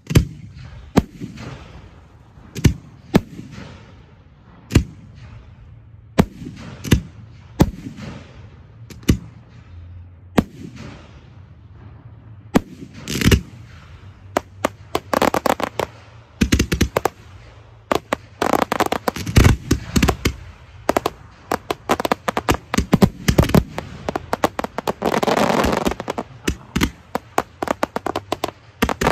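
Aerial fireworks display: shells bursting with sharp separate bangs every second or two, each with a fading echo. About halfway through the firing turns into dense rapid volleys of bangs and crackle, densest near the end.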